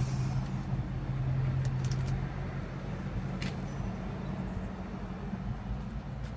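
A truck engine idling: a steady low hum that weakens about four seconds in, over outdoor background noise.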